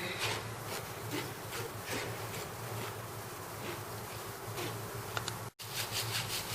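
Flour and cocoa being sifted through a hand sieve: the sieve shaken or tapped in short rasping strokes about twice a second, over a steady low hum. The sound cuts out for an instant near the end.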